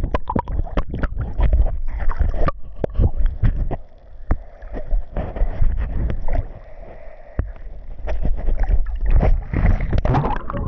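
Swimming-pool water splashing and sloshing in irregular bursts, with wind rumbling on the microphone.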